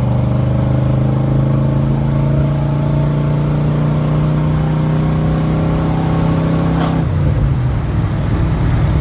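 Very loud 5.9-litre 360 V8 running under throttle, its note climbing slowly in pitch. About seven seconds in there is a sharp click, and the steady note gives way to a rougher, uneven rumble.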